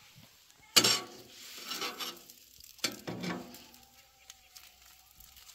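A metal utensil clattering and scraping in a pan of chorizo, eggs and potatoes on a camp stove: two sharp knocks about two seconds apart, the first the loudest, each followed by scraping and stirring.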